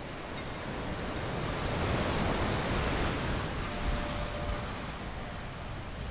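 Ocean surf washing up a sandy beach: one wave rushes in, swelling to its loudest about two seconds in, then easing off as the foam spreads.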